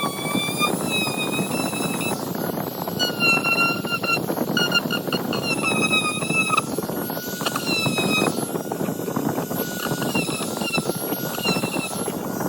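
Small electric motor running with a high, slightly wavering whine over a dense rattle, the whine dipping and breaking off briefly a few times.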